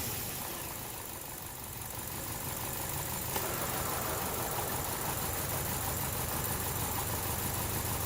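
2012 Chevrolet Cruze four-cylinder engine idling just after a restart, settling into a steady run. It idles roughly with a misfire on cylinder number 2 still present.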